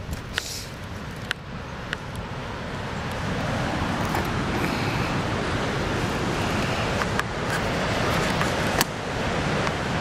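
Ocean surf breaking below, heard with wind on the microphone: a steady rushing noise that grows louder about three seconds in, with a few sharp clicks on top.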